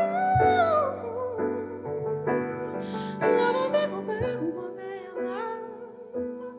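Live music: a woman's voice singing gliding, bending vocal runs over piano chords that change about once a second.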